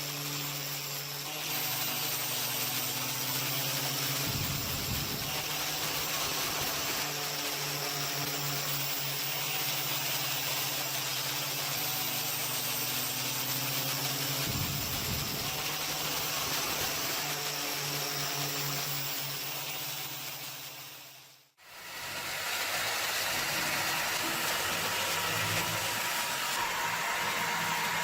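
An electric power tool runs steadily, with a motor hum under a loud hiss. It cuts out sharply about three-quarters of the way through and then runs on.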